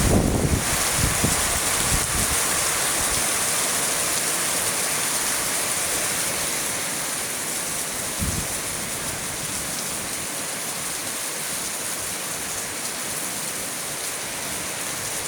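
Heavy rain falling steadily in an even hiss. Wind gusts rumble on the microphone in the first second or so, and there is a single low thump about halfway through.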